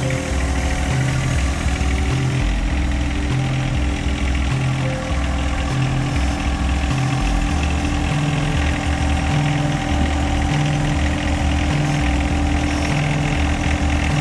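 John Deere 1025R subcompact tractor's three-cylinder diesel engine running steadily.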